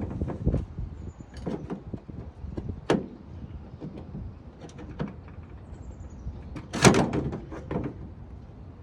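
A replacement plastic tailgate handle being worked into its opening in a pickup's steel tailgate: scattered knocks, clicks and rattles. The loudest is a sharp cluster of knocks about seven seconds in.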